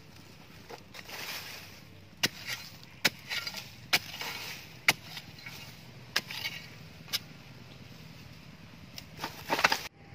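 Steel digging spade, forged from old steel, being stabbed into dry, hard soil: sharp chunking strikes about once a second, with earth crumbling and scraping between them and a quick cluster of strikes near the end.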